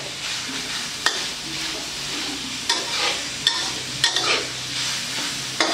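Glass noodles and vegetables stir-frying in a pan, sizzling steadily as they are stirred, with a few short sharp clicks.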